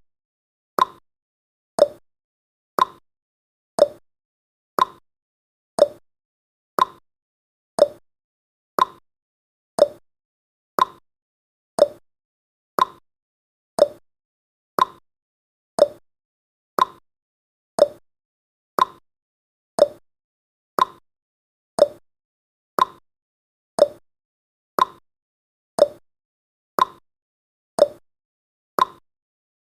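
Countdown timer's clock-tick sound effect: one short, sharp tick every second, perfectly regular.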